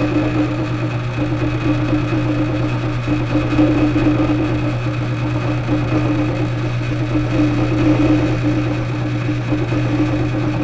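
Benchtop drill press running steadily, with a constant hum and a faint high whine, while drilling out a threaded hole in a small metal part held by hand.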